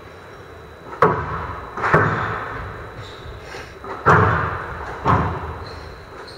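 Squash rally on a glass court: four sharp, loud hits of the ball, from rackets and court walls, spaced about a second apart with a pause between the second and third, each echoing in the hall.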